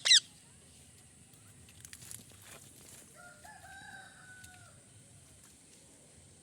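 A parrot's shrill screech breaking off at the very start, then quiet with a few faint clicks. About three seconds in comes a faint drawn-out bird call lasting about a second.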